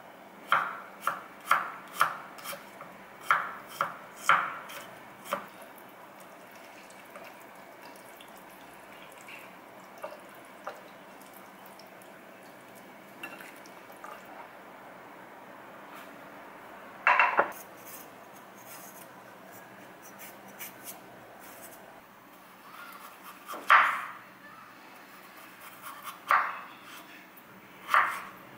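Kitchen prep sounds: a quick run of light clicks as a metal spoon sprinkles white pepper over raw chicken chops, then quiet handling while the marinade is worked in by hand. A few louder separate knocks follow, and near the end a chef's knife cuts a peeled potato on a wooden chopping board.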